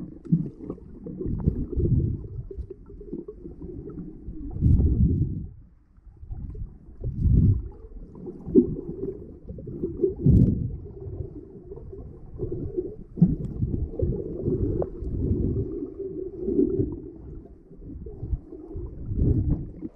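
Muffled low rumbling and sloshing heard through an action camera's housing held underwater, swelling every couple of seconds as the camera is moved through the water by a swimmer.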